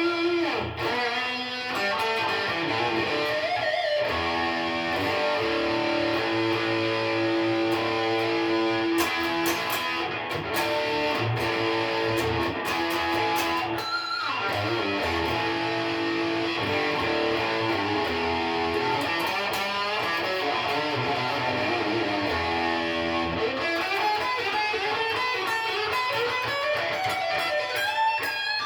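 Electric guitar played through a Boss Katana amplifier: held notes and chords with several sliding notes.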